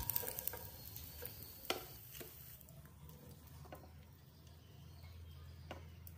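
A few faint, scattered taps and scrapes of a wooden spatula in a non-stick kadai as fried fish is lifted out of the oil, over a low steady hum.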